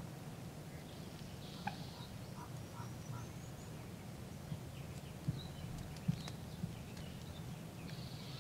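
Wild birds calling in the woods: short high chirps and a thin rising whistle over a steady low background hum, with a few small clicks and rustles.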